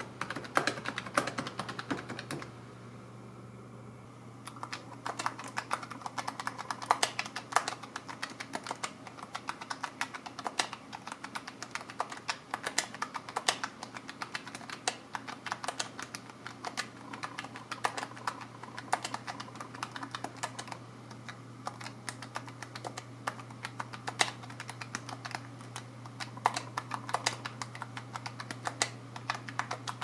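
Fast, irregular clicking of the PinePhone Keyboard's small keys as text is typed. The clicking pauses for about two seconds near the start, then carries on steadily as the keyboard is typed on with both thumbs.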